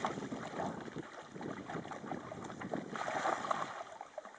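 Dogs wading and splashing through shallow water, a busy irregular sloshing and splatter that is a little louder about three seconds in.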